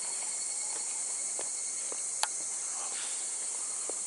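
A steady chorus of insects in the surrounding woods, a continuous high-pitched hiss with a couple of steady whining tones. A single sharp click stands out about two seconds in, with a few fainter ticks around it.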